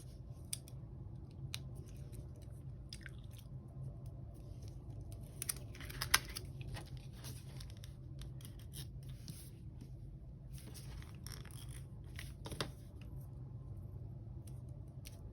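Planner stickers and paper being handled: scattered soft rustles, crinkles and small taps as a sticker is peeled and pressed down, over a steady low hum.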